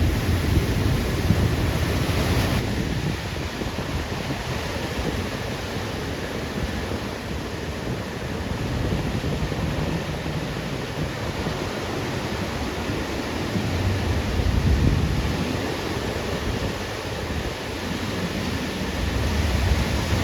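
Ocean surf breaking and washing ashore in a continuous rush that swells and eases every few seconds, with wind rumbling on the microphone.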